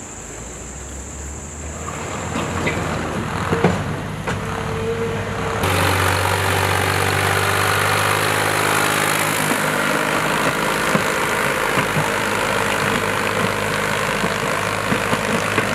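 Ford compact tractor's engine running steadily. About six seconds in it steps up to a louder engine hum with a dense hiss over it. Before that a quieter engine hum carries a few knocks.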